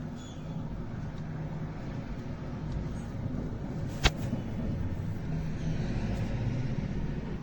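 Steady low rumble, with one sharp click about four seconds in.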